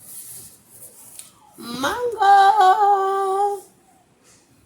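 A voice sliding up into one long held note of delight, like a sung "ooh", lasting about two seconds, after soft rustling in the first second.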